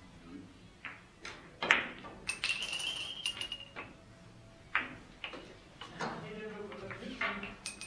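Billiard balls clicking sharply as they strike one another, the loudest strike about a second and a half in, followed by a brief high ringing and a scatter of smaller clicks.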